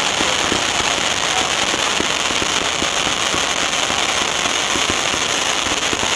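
Fireworks from ground-launched effects, a steady dense hiss packed with rapid small pops, with no single big bang.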